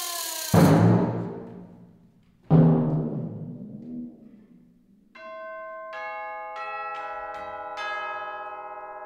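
Timpani struck twice, two seconds apart, loud, each stroke ringing away. Then, about five seconds in, six metallic bell notes enter one after another on tubular bells and ring on together.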